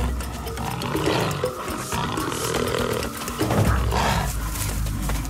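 Snarling and growling from spotted hyenas and cheetahs in a scuffle, in several harsh bursts.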